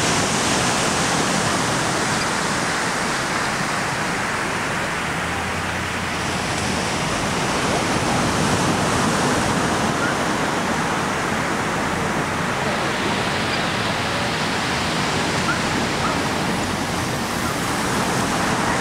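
Steady rushing of surf washing onto a sandy beach.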